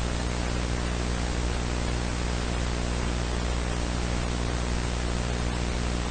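Loud, steady TV-style static hiss with a low hum beneath it, cutting in abruptly: the static effect of an analog horror video.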